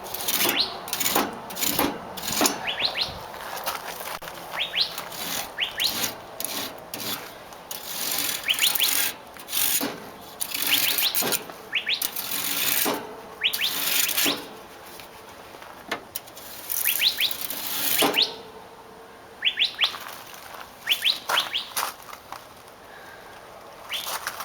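A piece of plastic comb being raked through the aluminium cooling fins of an A/C condenser, straightening bent fins: a run of repeated rasping strokes, each with quick little chirps as the teeth catch on the fins, pausing briefly about three-quarters of the way through.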